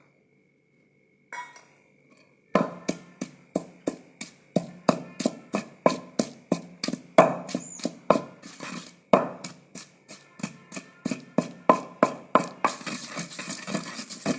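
Pestle pounding garlic and green chillies in a kunda (mortar), in a steady run of sharp strikes about two to three a second, starting about two and a half seconds in.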